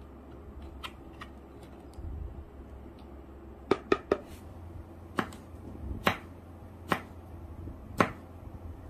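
Knife blade striking a wooden cutting board while cutting food: a few faint taps, then a quick run of three sharp knocks, then single knocks about a second apart.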